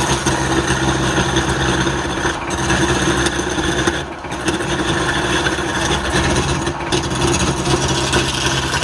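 Electric woodturning lathe running at full speed, switching on abruptly: a steady motor hum under a loud, dense hiss of the work being cut. The hiss briefly eases three times.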